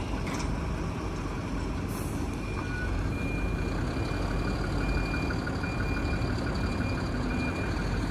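Heavy goods truck reversing: its reverse-alarm sounds a repeated high beep, starting about two seconds in, over the steady rumble of the diesel engine running.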